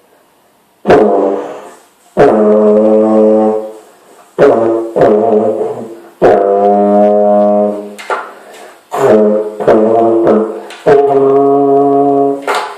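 A brass instrument being blown: a series of about ten separate held notes at a few different pitches, some lasting a second or more, each starting abruptly.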